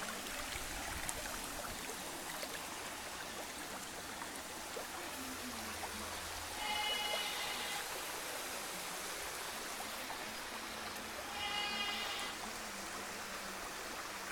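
Steady rush of water from a swimming-pool waterfall pouring into the pool. Two short high calls stand out over it, about six and a half and eleven and a half seconds in.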